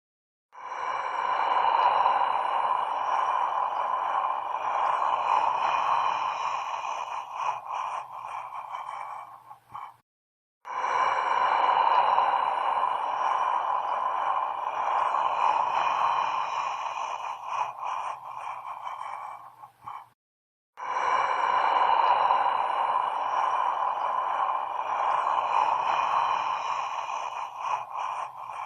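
Horror sound effect: a dense hissing drone with thin, steady high tones above it. It lasts about nine seconds, thins out and stops, and is played again twice after short gaps of silence.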